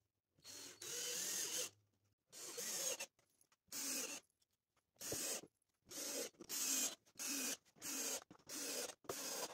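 Cordless drill driving screws into a wooden board, its motor whirring in about nine short bursts with brief pauses between them.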